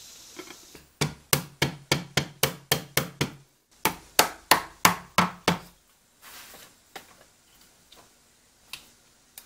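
A soft-and-hard-face hammer tapping a wooden tray's dovetailed corners together with sharp wooden knocks, about four a second. There is a run of about nine taps, a brief pause, then about seven more.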